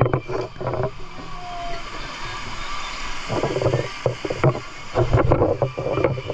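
River water splashing and sloshing around people wading and swimming, in uneven bursts that are busier in the second half.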